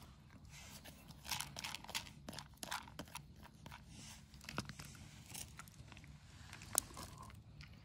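Cats eating dry kibble from a bowl: irregular small crunches and clicks of chewing, with one sharper click near the end.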